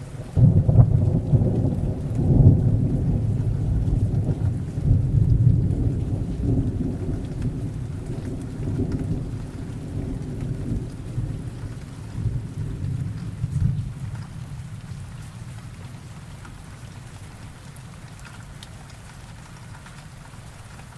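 Rain falling steadily under a long, rolling peal of thunder that begins just after the start, swells and rumbles for over ten seconds, then slowly dies away, leaving the rain.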